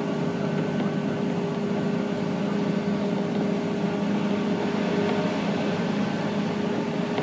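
Steady interior noise of a 185 series electric train carriage: an even rumble with a constant hum made of several steady tones.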